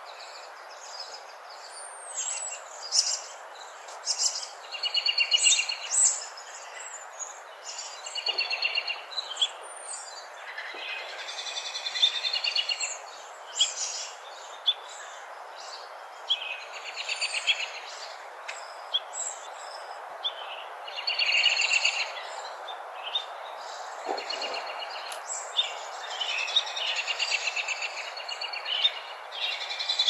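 Several songbirds singing and calling over one another, with many short chirps and repeated rapid trills, over the steady rush of a creek.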